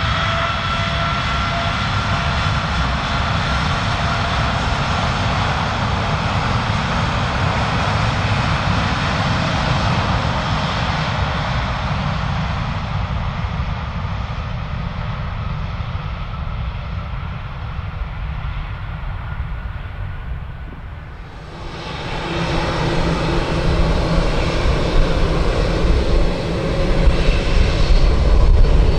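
Rolls-Royce Trent 1000 turbofan on a Boeing 787-8 at take-off power: a rushing jet roar with a high fan whine that rises slightly in pitch, then grows steadily fainter. About two-thirds of the way in it cuts abruptly to a GE GEnx-1B64 turbofan on another Boeing 787-8 spooling up, its deep rumble growing louder toward the end.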